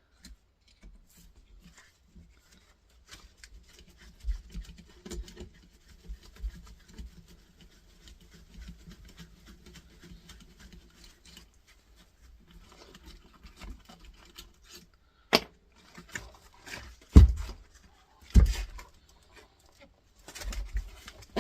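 Small metal clicks, scrapes and handling noises of a bit screwdriver working the screws out of a compressor motor's mounting springs, with a few sharp louder knocks in the second half.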